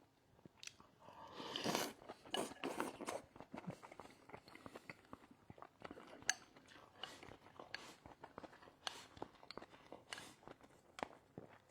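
A person chewing a mouthful of fatty beef rolls and rice, with many small wet mouth clicks and a louder noisy swell about two seconds in.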